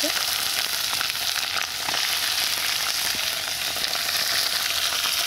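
Marinated chicken pieces sizzling steadily in hot oil in a kadai, with a spatula stirring and scraping them in short clicks.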